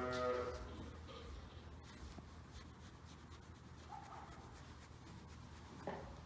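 A sheep gives a short, low bleat at the start. Faint rustling of sheep shifting in their bedding follows.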